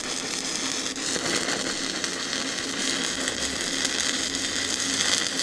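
Stick-welding arc on a 7018 low-hydrogen electrode: a steady crackling sizzle as the rod burns while a fillet bead is laid.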